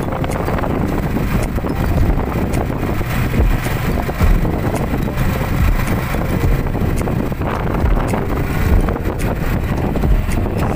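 Motor tricycle's engine running as it travels along a road, with wind rumbling on the microphone.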